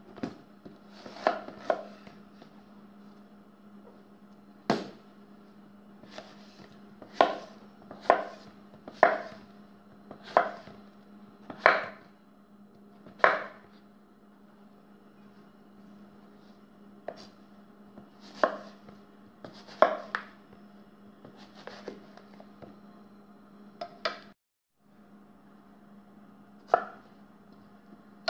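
Kitchen knife chopping a tender chilacayote (fig-leaf gourd) on a wooden cutting board: sharp knocks of the blade hitting the board, roughly one a second, with pauses between. A faint steady hum runs underneath.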